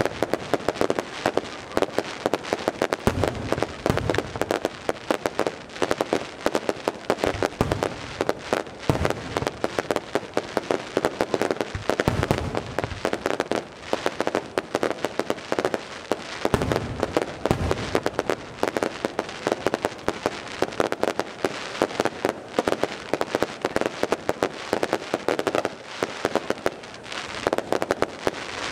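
Fireworks display: aerial shells bursting overhead with deep booms every few seconds, over dense, continuous crackling and popping.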